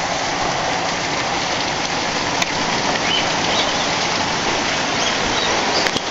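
Heavy thunderstorm rain pouring down, a steady dense hiss of drops hitting surfaces, with a few sharp ticks of drops about two seconds in and near the end.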